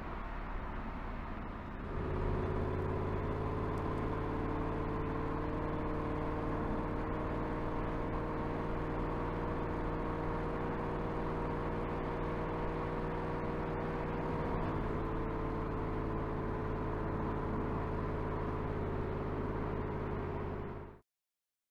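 Porsche Panamera Turbo's 4.0-litre twin-turbo V8 running at a steady engine speed while the car drives at an even pace. The note holds steady throughout, settling in about two seconds in, then cuts off abruptly shortly before the end.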